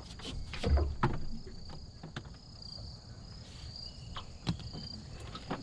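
Insects trilling steadily at a high pitch, with scattered sharp clicks and a few louder knocks about a second in.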